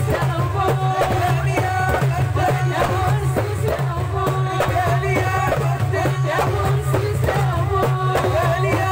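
Live Algerian folk music: drums beating a steady, fast rhythm under a voice singing a melody.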